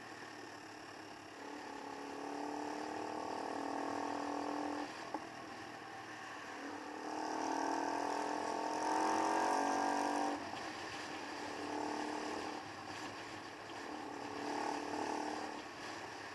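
Keeway Superlight motorcycle engine pulling under throttle in four stretches, its pitch rising slowly in each before cutting off abruptly, the longest about seven to ten seconds in. Steady wind and road noise underneath.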